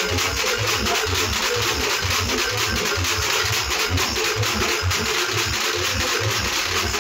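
Loud, distorted live music from a banjo band: drums beating a steady rhythm about three times a second under a dense noisy wash.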